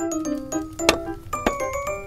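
Background music: a light melody of short stepping notes, with a few sharp clicks along with it.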